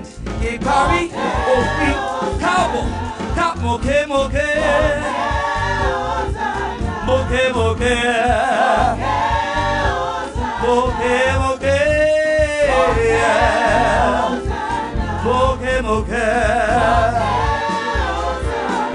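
Gospel praise-and-worship music: voices singing with wide vibrato over an instrumental backing with a steady bass.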